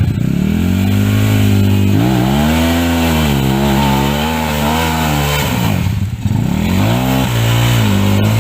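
Off-road dirt bike engine revving hard in repeated surges, its pitch climbing, holding high and wavering, then falling; it drops away about six seconds in, then comes back in two short bursts of throttle.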